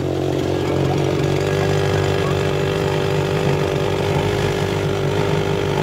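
Homemade outboard motor built from a two-stroke chainsaw engine running steadily, pushing a small aluminium boat. It grows louder over the first second, then holds an even drone.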